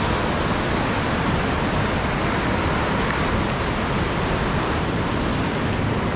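Steady rush of whitewater rapids on a river running high, at about 1350 cfs.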